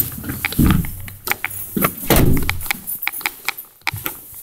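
Handling noise from a phone carried with its microphone covered: fabric rubbing on the microphone swells twice, about a second in and again near the middle, amid a string of sharp clicks and knocks.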